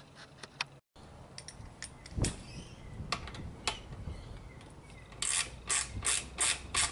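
Ratcheting hex driver undoing an Allen head bolt on a motorcycle's headlight mount: scattered metal clicks, then from about five seconds in a steady run of ratchet clicks, about three a second.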